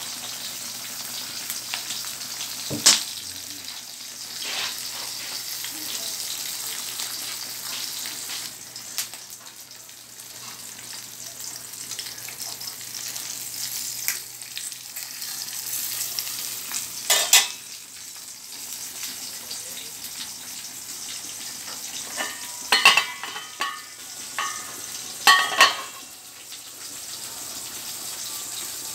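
Chicken and pork adobo simmering in vinegar and soy sauce in a pan, a steady bubbling sizzle. A few sharp knocks cut in, one about three seconds in, two near the middle and a cluster near the end.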